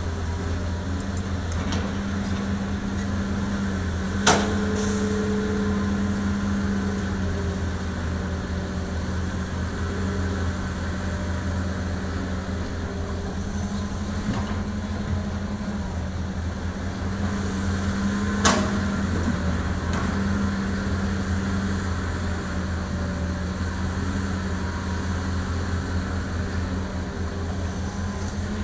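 Hitachi ZX200 excavator's diesel engine running steadily while it digs and loads dirt, its note swelling and easing with the work. Two sharp knocks stand out, about four seconds in and again about eighteen seconds in.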